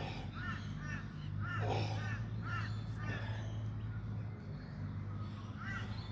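Crow cawing in a quick series of short calls, thinning out after the first half, over a steady low hum.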